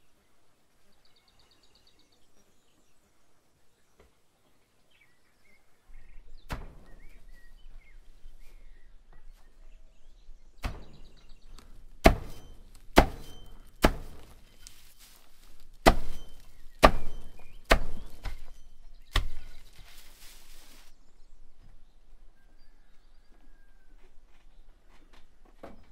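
Small axe chopping a heap of hay on a wooden stump: about nine sharp, unevenly spaced chops over some twelve seconds, followed by a short rustle.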